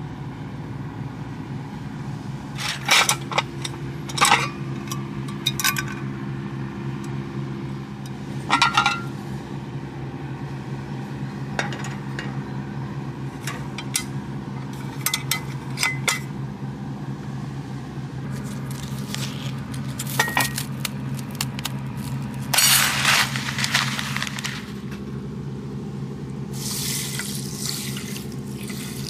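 Scattered clinks and knocks of tableware and cooking utensils being handled, about ten sharp strikes, over a steady low hum. A few longer bursts of noise come in the second half.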